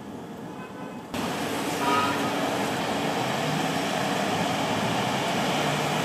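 Busy city street traffic: the engines and tyres of passing vehicles run as a steady rumble. The rumble jumps suddenly louder about a second in.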